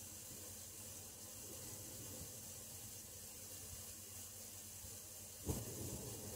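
Steady hiss of water running through a lodge's water pipes, left running to prevent freeze damage. About five and a half seconds in, a sudden thump, after which a low rumble starts and grows louder.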